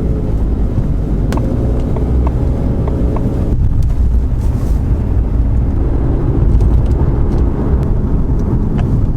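Ford Mustang driving, its engine and road noise making a steady low rumble. About a second in comes a run of evenly spaced ticks lasting about two seconds, and a little past a third of the way through the engine note changes.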